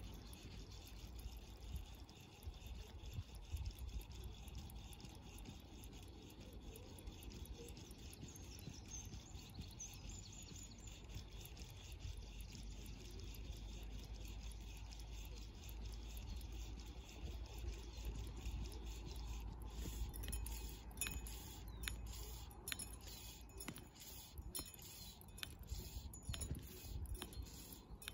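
Fly line being retrieved by hand, a soft rubbing of the line through the fingers and rod rings. About two-thirds of the way through it turns into a run of sharper ticks, over a steady low rumble.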